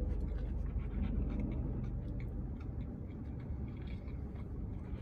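A person eating: soft chewing with scattered light clicks and rustles, over a steady low hum.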